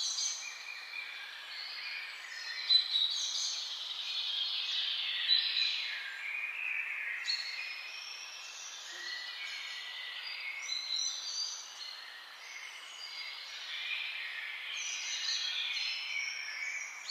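A chorus of many small birds chirping and singing at once: overlapping high calls that run on without a break.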